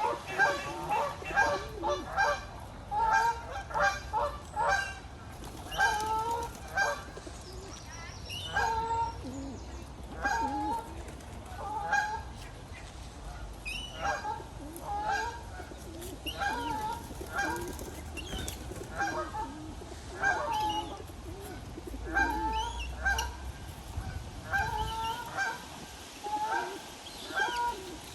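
Geese honking: many short, nasal calls, crowded together in the first few seconds, then coming about once or twice a second.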